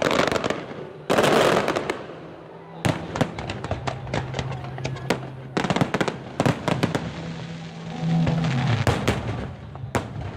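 Aerial fireworks bursting: a rapid series of sharp bangs and crackles, the loudest burst about a second in, with music playing underneath.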